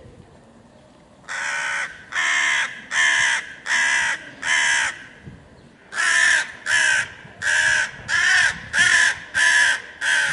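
Crow cawing: after about a second, a run of five caws, a short pause, then about seven more in quick succession.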